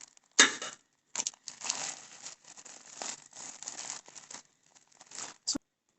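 Packaging being torn open and crinkled by hand: a sharp rip about half a second in, then irregular crinkling and rustling, ending with a short sharp click.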